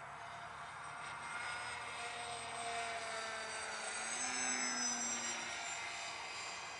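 Electric motor and propeller of a Super Bandit depron parkjet RC model flying past: a whine that grows louder to a peak about four to five seconds in, its pitch dropping as it passes, then easing off.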